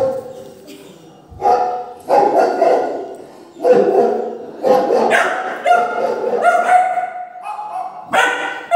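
Dog barking over and over in quick runs of sharp barks, with a drawn-out, high, whining tone for a second or two just past the middle.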